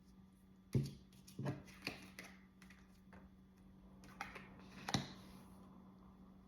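Tarot cards being handled and set down on a table: a handful of irregular taps and slaps, the loudest about a second in and again near five seconds, over a faint steady hum.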